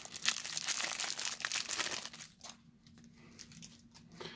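Plastic wrapper of a trading-card booster pack crinkling and rustling as it is handled and the cards are pulled out, busiest for the first two seconds and then dying down to light handling.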